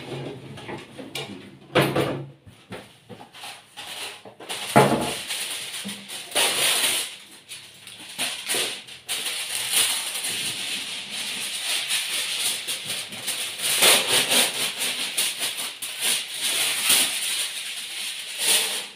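A sheet of aluminium foil rustling and crinkling as it is pulled from its box and opened out, with two knocks about two and five seconds in.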